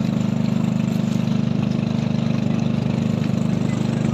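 A small motorboat's engine running steadily, with a fast, even pulsing.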